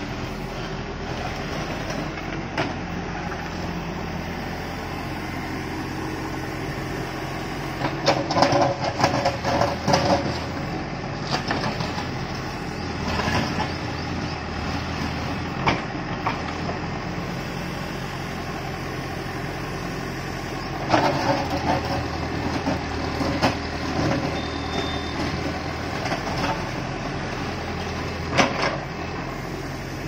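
Terex TLB 740S backhoe loader's diesel engine running steadily while the backhoe bucket digs into rubble. Stones scrape and clatter in two bursts, about eight and twenty-one seconds in, with a few single knocks between.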